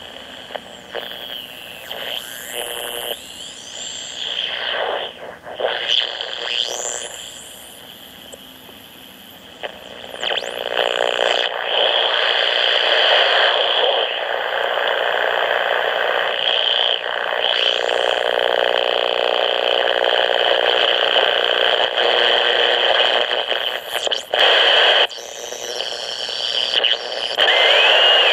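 AM radio picking up interference from a home-built blocking oscillator (an LED driver with hand-wound magnet-wire coils) as its potentiometer is turned up. At first, whistling tones sweep up and down. From about ten seconds in, a loud, steady buzzing hiss with many tones stacked together takes over, breaking off briefly near the end.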